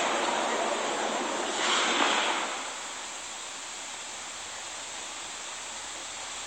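Audience applause in an ice rink dying away over the first few seconds, with a brief swell near two seconds. After it comes the steady hush of the arena: an even background noise of air handling and room tone.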